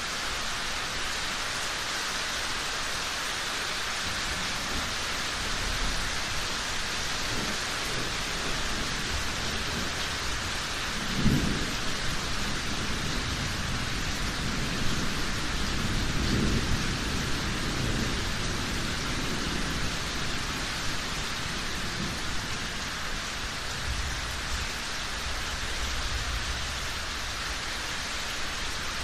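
Steady heavy rain with thunder: a sharp clap about eleven seconds in and a longer low rumble rolling a few seconds later.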